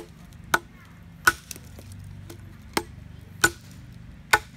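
Machete blade chopping into a dead branch laid across a log: six sharp chops at an uneven pace.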